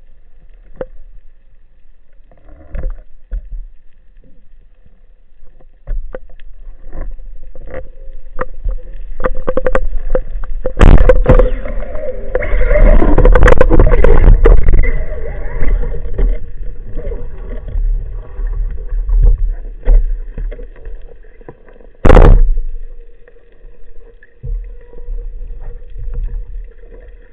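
Underwater sound in a spearfisher's camera housing: water movement and bubbling with scattered knocks and clicks. A dense rushing stretch comes in the middle, and a single sharp, loud crack follows later.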